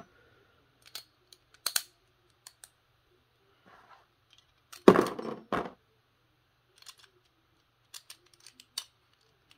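Small plastic clicks and clacks as Beyblade Burst top parts are handled and taken apart, with a louder pair of clacks about five seconds in.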